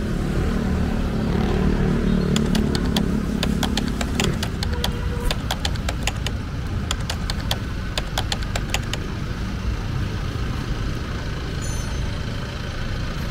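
Street traffic: a motor vehicle engine running close by for the first four seconds, then cutting away, leaving a steady low traffic rumble. A run of sharp clicks sounds in the middle.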